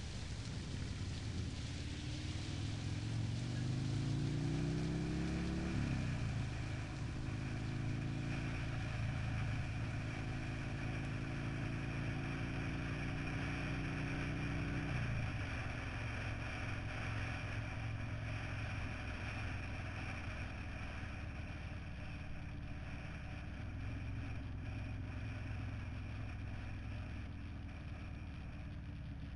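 Buell Lightning X1's air-cooled V-twin engine pulls up through the revs for about six seconds, drops suddenly as it shifts up, runs steadily, drops again about halfway through, then cruises at an even speed. Wind rushes over the helmet-mounted microphone throughout.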